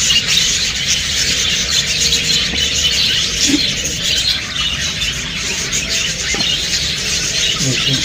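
A colony of budgerigars chattering, a steady dense twittering of short high chirps from many birds at once.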